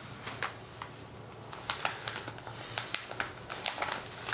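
Magazine paper being folded and pressed by hand around a dab of epoxy: scattered paper crinkles and small ticks that grow denser from about a second and a half in, over a low steady hum.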